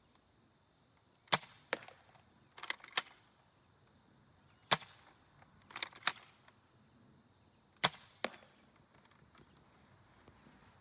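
Spring-powered M1 Garand replica airsoft rifle being fired, loaded with heavy 0.40 g BBs: a series of sharp snaps, about nine, several coming in close pairs a fraction of a second apart.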